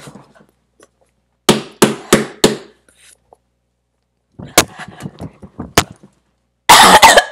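Hands slapping and banging, probably on the desk or the body, in a pain reaction to the burn of a very hot gumball: four sharp whacks about a third of a second apart, then scattered lighter knocks. Near the end comes a loud, rough, noisy burst.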